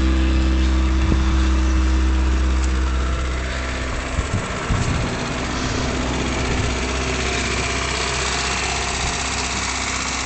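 An engine running steadily, easing to a slightly lower, even run about three and a half seconds in, with a few short knocks shortly after.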